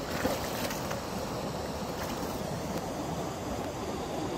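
Steady rush of river water at the shoreline, with a few light splashes in the first second as a walleye is lowered by hand into the shallow water.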